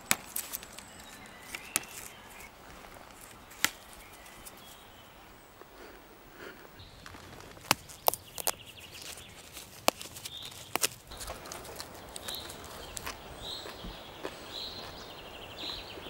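Scattered sharp snaps and crackles of plant stems and twigs being handled on the forest floor, over a low outdoor hiss. A bird chirps repeatedly in the second half.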